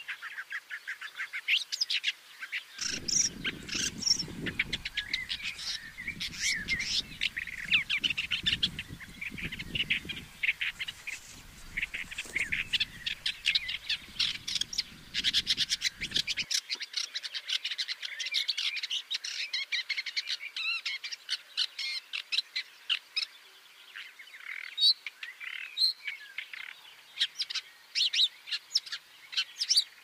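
Woodchat shrike singing: a long, unbroken run of rapid short chirps and varied notes. A low rumble runs underneath from a few seconds in until about halfway.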